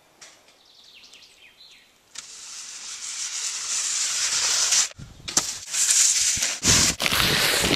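Skis hissing down a summer ski-jump inrun track, growing steadily louder as the jumper speeds toward the takeoff and cutting off sharply at takeoff. Loud, rough, gusty noise follows for the last few seconds.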